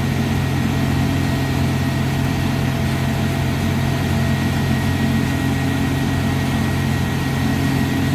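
Tractor engine running steadily at a constant pitch, driving a feed grinder through its PTO shaft.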